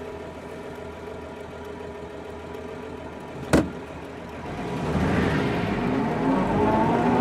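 1936 Hudson Terraplane's flathead six idling steadily, heard from inside the cabin. A single sharp click comes about three and a half seconds in. The engine then grows louder, its note rising steadily as the car accelerates away from a stop.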